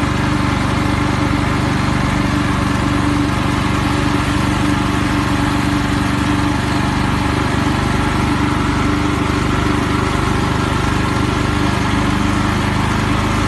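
Honda snowblower's engine running steadily while it clears and throws snow.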